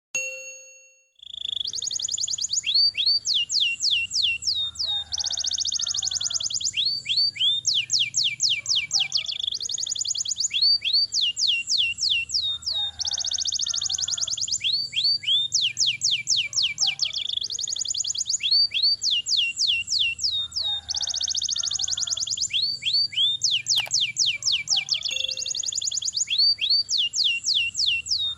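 Domestic canary singing a long rolling song of fast trills and rapid sweeping notes, the same phrase repeating about every four seconds. A brief tone sounds at the very start, before the song comes in.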